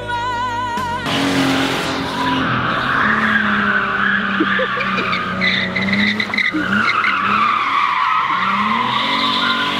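Dodge Challenger doing a burnout in circles: tyres squealing continuously over the loud engine, whose revs rise and fall as it spins. The first second is the tail of a piece of music.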